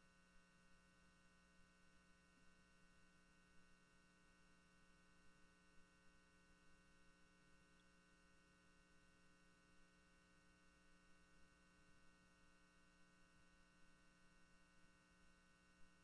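Near silence: a faint steady electrical hum.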